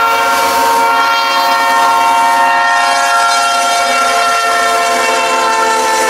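Locomotive multi-chime air horn sounding one long, steady blast, the grade-crossing warning of Bessemer & Lake Erie locomotive 901 as it leads its train over the crossing.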